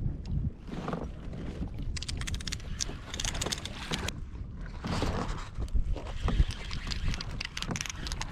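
Wind buffeting the microphone as a constant low rumble, with a run of short clicks and knocks from about two seconds in.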